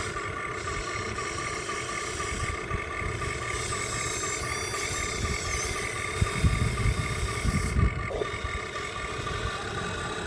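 Radio-controlled truck running, with a steady high whine over a low engine-like rumble that grows louder and rougher about six to eight seconds in.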